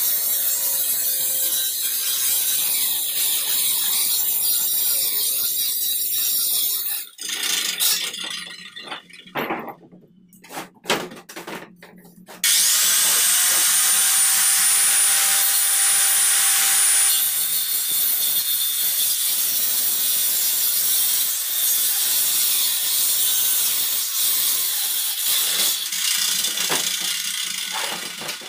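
Handheld electric circular saw cutting through plywood. It stops about seven seconds in, with a few handling clicks, then starts again about twelve seconds in with a quick rising whine and cuts on.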